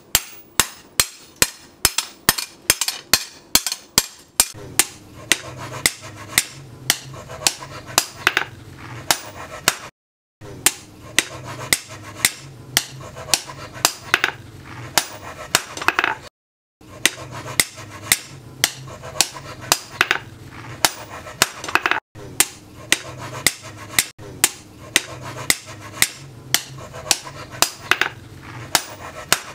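Hand hammer striking a steel leaf-spring blank on a steel post anvil, steady ringing blows about two a second: hot forging the end of the spring into an axe eye. A low steady hum runs under the blows from a few seconds in, and the hammering breaks off twice for a moment.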